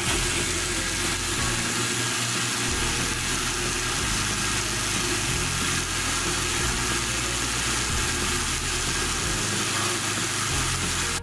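Electric blender motor running at full speed, grinding boiled chana dal into a smooth paste. It switches on abruptly at the start and cuts off abruptly at the end.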